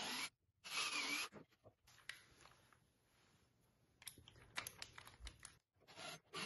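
Cordless drill boring a recess into the old wooden cart frame in two short bursts, the bit chewing through the wood. A few light clicks follow as a screw is handled and set on the driver bit, then short bursts near the end as the screw is started into the wood.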